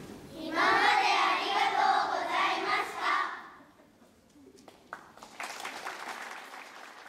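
A children's choir voicing a phrase together for about three seconds, then a few scattered claps building into light applause.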